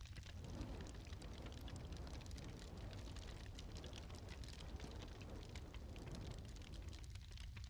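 Wood fire crackling in a hearth: scattered sharp pops and snaps over a low steady rumble. A soft rushing noise swells in shortly after the start and fades near the end.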